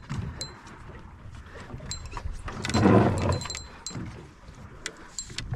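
Sea water lapping against the hull of a small fishing boat, with scattered light clicks and a louder low rush about three seconds in.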